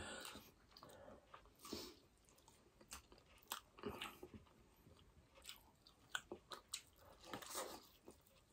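Faint eating sounds: irregular wet clicks and smacks of mouths chewing soft burger steak in gravy with rice, one bite near the end.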